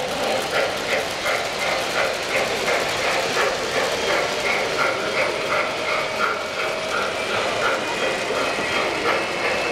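Three-rail O-gauge model trains running on a layout, their wheels clicking evenly over the track joints about three times a second, with motor hum under the clicks. A faint high whine joins in near the end.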